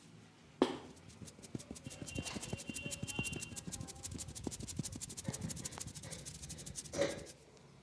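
Barber's hands striking a customer in a fast, even rhythm of massage strokes, about ten a second, with a louder slap about half a second in and another near the end.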